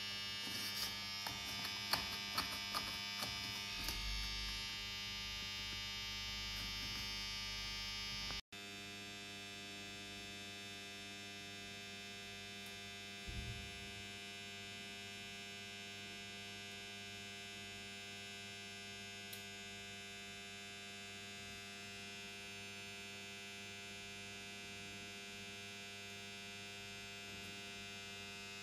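Steady electrical mains hum made of many steady tones, with a few sharp clicks in the first four seconds. About eight seconds in the sound breaks off for an instant, then the hum goes on a little quieter.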